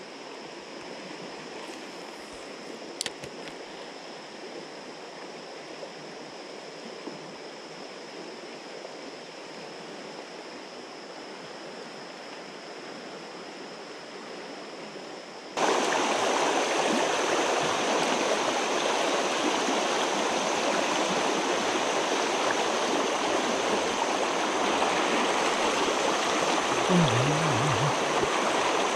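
River water flowing steadily, then, about halfway through, a sudden change to the louder rush of a shallow riffle pouring over rocks. A faint click about three seconds in.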